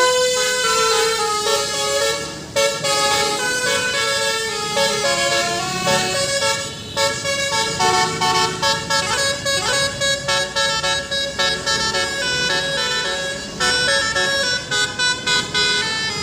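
Telolet basuri bus horn, a set of multi-tone horns, playing a melody of held notes that step up and down in pitch. In the last few seconds it breaks into quick short toots.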